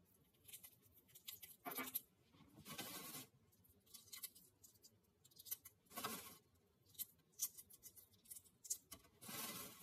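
Faint crackling and scratching of eggshell being cracked and picked off a hard-boiled egg by hand, in short irregular bursts with a couple of longer hissing scrapes.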